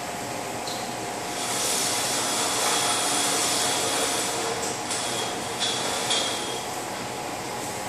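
SATA compressed-air paint spray gun hissing as base coat goes onto a fender: one long pull of about three seconds starting a second or so in, then three short trigger pulls. A steady fan hum runs underneath.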